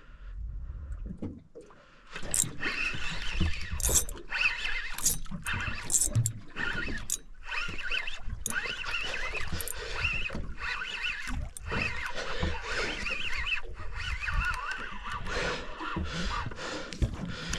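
Fishing reel being cranked to wind in a hooked fish: a continuous rough whirring broken by many sharp clicks, starting about two seconds in.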